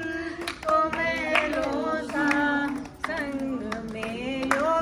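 A small group of men and women singing a song together, clapping their hands along with it.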